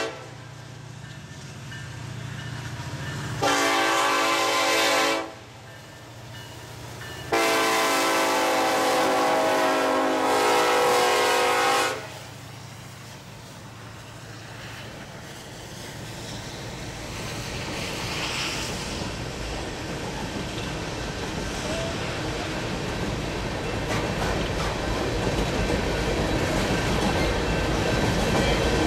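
Diesel locomotive horn on an empty BNSF coal train led by SD70ACe 9017 sounds two blasts, a shorter one about three seconds in and a long one held for several seconds. The locomotives then pass and the empty coal gondolas roll by, the rush of wheels on rail growing steadily louder.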